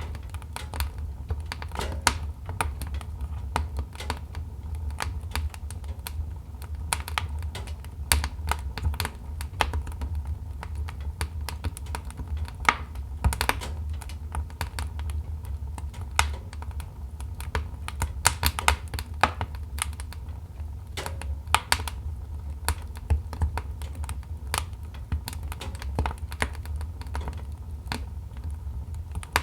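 Wood fire in a fireplace crackling: irregular sharp pops and snaps from the burning logs over a steady low rumble of the flames.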